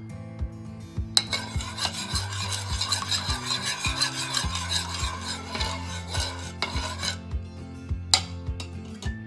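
Metal teaspoon beating raw eggs in a ceramic bowl: rapid scraping and clinking of the spoon against the bowl, starting about a second in and stopping about seven seconds in, then a couple of sharp taps of the spoon on the bowl near the end.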